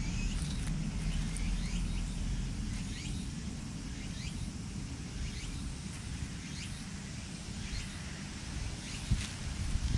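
Outdoor park ambience: a steady low rumble with small birds chirping, short calls every second or so, and a sharp click or rustle near the end.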